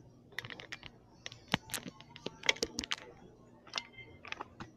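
Clear slime being squeezed and stretched by hand, giving irregular small clicks and pops.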